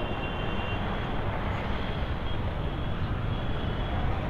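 Steady street noise of a busy city road, with traffic and general hubbub at an even level.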